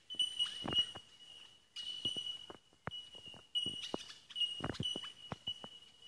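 Australian bellbirds (bell miners) calling: a nearly unbroken stream of high, bell-like 'tink' notes repeating over and over, with scattered short clicks and knocks among them.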